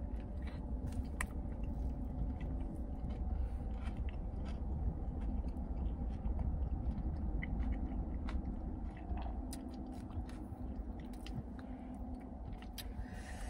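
Close-up biting and chewing of a crispy fried-chicken sandwich, with many small crunches and wet mouth clicks scattered throughout, over a steady low rumble.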